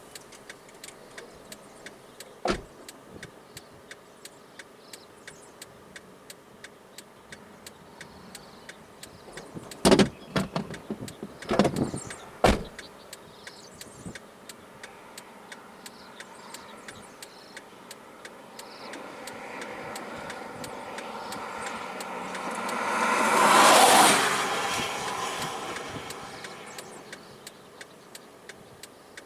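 A vehicle passing by, its sound swelling up over several seconds, loudest about three-quarters of the way through, then fading. Earlier come a few loud knocks, and a steady fast ticking runs underneath throughout.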